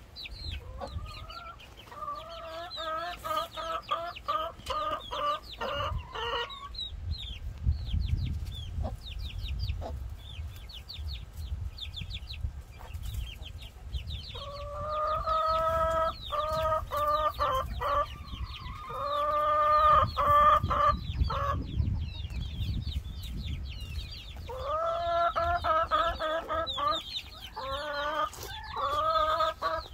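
A flock of chickens clucking, with three runs of repeated calls lasting several seconds each, over steady high peeping. Low rumbling comes and goes.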